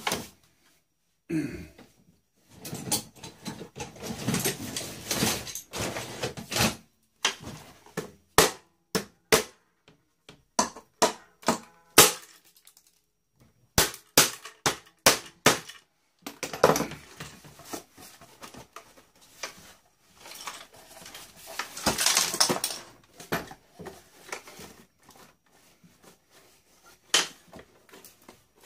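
Plastic and metal parts of a boombox being pried, snapped and handled during stripping: a string of sharp clicks, snaps and clatters, with two longer stretches of crackling and rattling.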